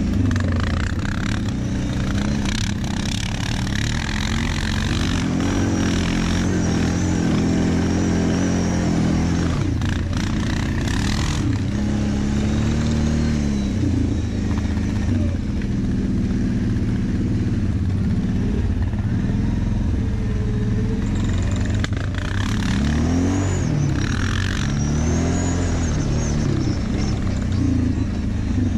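Quad (ATV) engine running at low speed over a dirt track, its pitch rising and falling several times as the throttle is opened and eased off.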